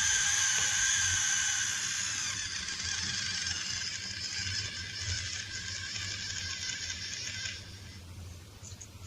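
A long, breathy hiss that holds fairly steady and then drops away about seven and a half seconds in.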